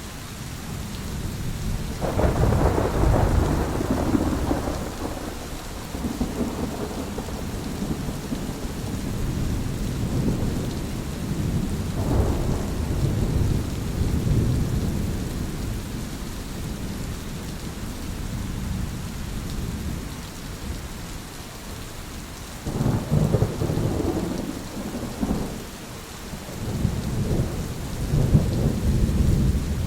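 Thunderstorm: steady heavy rain with repeated rolling thunder. A peal breaks in suddenly about two seconds in, another rumbles around the middle, and more peals come in the last third.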